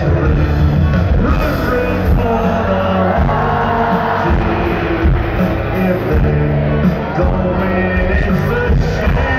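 Loud live country band playing while singers perform, heard from among the stadium crowd.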